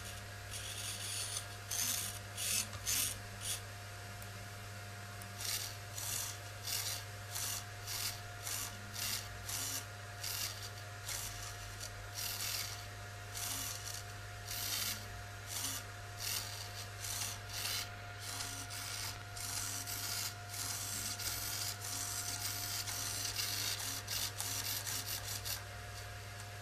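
Hobby servo motors tilting a two-axis table, their gears whirring in many short bursts of about half a second each, merging into near-continuous whirring for several seconds late on. A steady low hum runs underneath.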